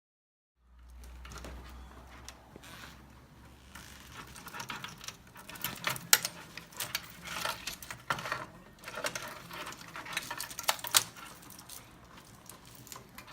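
Irregular clicks, knocks and rattles of hard parts being handled, with a low hum in the first few seconds; the sharpest clicks come about six and eleven seconds in.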